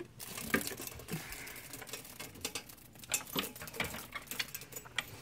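A dog sniffing and scrabbling in a corner, giving a run of irregular light clicks, scratches and rustles.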